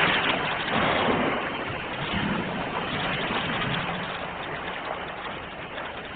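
Ocean waves: the hiss of a broken wave washing back and slowly fading, with the next wave rising near the end.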